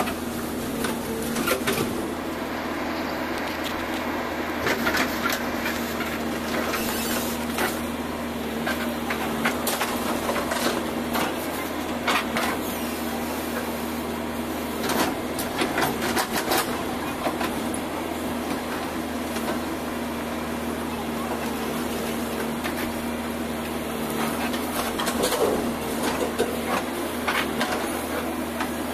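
JCB backhoe loader's diesel engine running steadily as the backhoe bucket digs and drags through brick demolition rubble, with bricks and broken masonry clattering and knocking several times.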